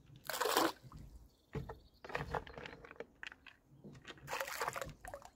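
Baiting spoon dipped and emptied into the river beside a small boat: water splashing and sloshing in several short bursts, the loudest about half a second in.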